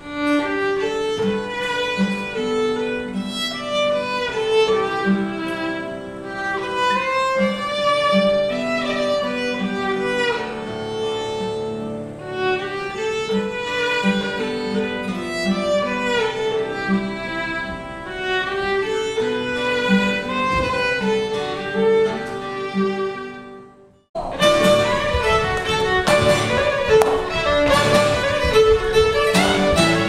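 Irish fiddle playing a lively tune with quick, running notes, accompanied by a strummed steel-string acoustic guitar. About 24 s in the music cuts off suddenly and resumes louder, with sharp knocks among the notes.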